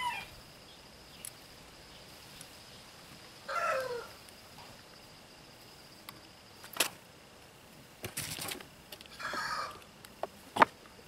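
A few sharp clicks and taps of hands and a screwdriver working on a string trimmer's carburetor and fuel-line fittings, with two animal calls, one falling in pitch about three and a half seconds in and another about nine seconds in.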